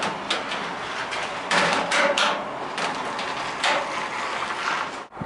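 Stainless-steel under-sink cabinet doors being opened and handled, with a series of sharp metal clicks and knocks from the latches and panels. The loudest cluster comes about a second and a half to two and a half seconds in.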